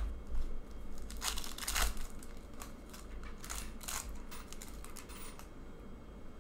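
Foil wrapper of an Upper Deck hockey card pack being torn open and crinkled in a few short bursts, with light clicks of cards being handled.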